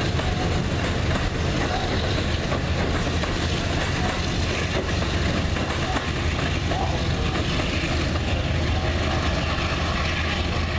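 Amtrak train of Amfleet coaches pulling away, with a steady rumble and the clickety-clack of its wheels rolling over rail joints and switches.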